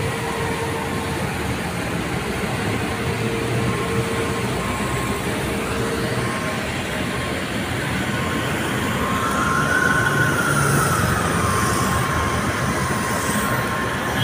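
Steady city street traffic noise: vehicle engines running and passing, with a faint tone that rises and falls about two-thirds of the way through.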